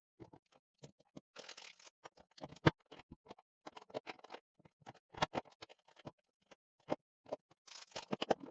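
Irregular clicks, taps and knocks of small hard pieces being handled on a work surface, with a sharper knock about a third of the way in and another past the middle. There are brief scraping rustles near the start and near the end.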